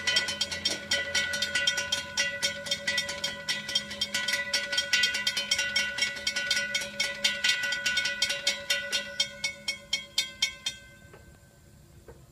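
Railroad grade-crossing bell ringing with rapid, even strokes, then stopping about three-quarters of the way through and fading out.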